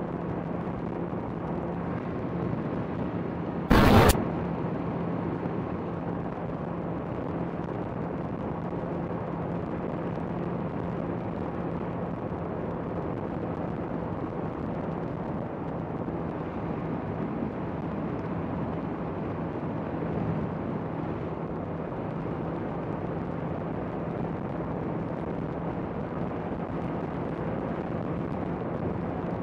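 Honda CBR650R inline-four motorcycle cruising at a steady engine speed, its hum under a constant rush of wind on the microphone. One short, loud burst about four seconds in.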